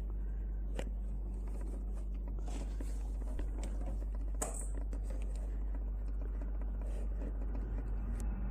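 Faint handling noise of a hand-held camera: scattered small clicks and rubbing, with one sharper click about four seconds in, over a steady low hum.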